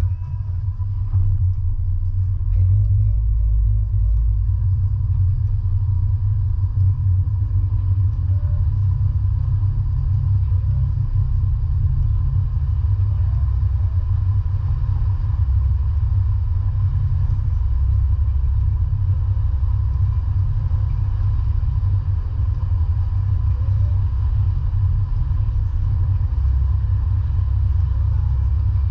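A vehicle's steady low rumble while underway, with a faint, thin, steady higher tone over it.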